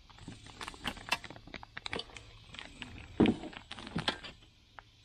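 A parts box and its packaging being handled: irregular clicks, crinkles and light knocks, with one louder knock a little after three seconds in.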